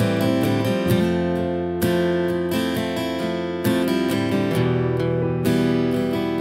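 Acoustic guitar strumming chords in a steady rhythm, the chord changing every second or two.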